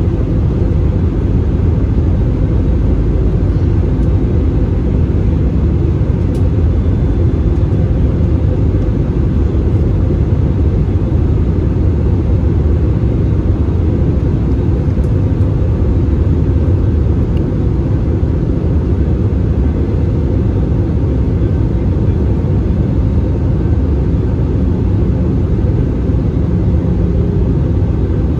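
Cabin noise inside an Airbus A320-216 in flight: a steady low rumble of airflow and the CFM56 engines, heard from a seat beside the wing.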